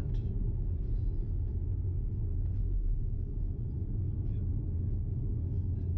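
Steady low road and tyre rumble heard inside the cabin of a moving Tesla Model X, an electric car, so there is no engine sound.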